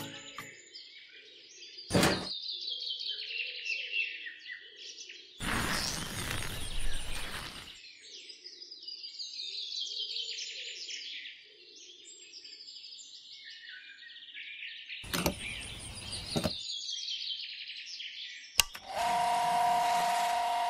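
Small birds chirping over and over, with a few brief rushing noises. Near the end a miniature electric water pump switches on with a click and runs with a steady hum over a rush of water.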